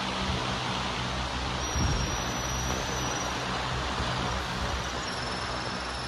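Steady outdoor background noise with a low hum, like distant road traffic, and one dull low thump about two seconds in.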